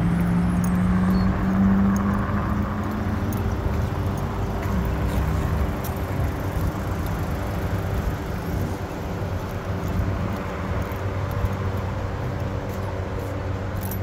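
Road traffic going past: a steady rush of cars, with one engine's hum rising in pitch over the first few seconds.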